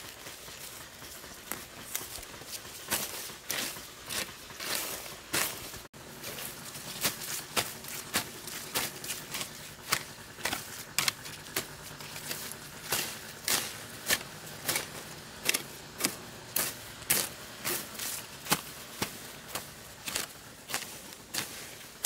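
Hand hoe chopping into dry soil and weeds, a steady run of sharp strikes about one or two a second, each with a short scrape of earth and torn plants.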